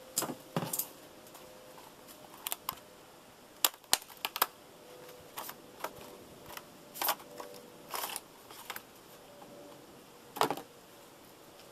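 Hands handling a wiper blade and its packaging at the rear wiper arm: irregular sharp plastic clicks and short rustling scrapes.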